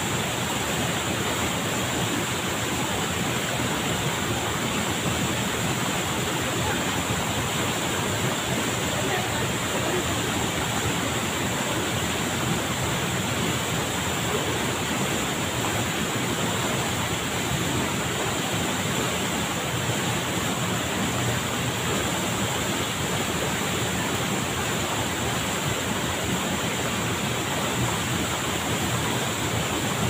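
Waterfall pouring steadily into a shallow pool, a constant rush of falling water.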